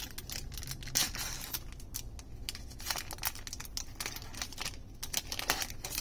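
Foil wrapper of a Magic: The Gathering booster pack being torn open and crinkled by hand: a run of irregular sharp crackles, louder about a second in and again near the end.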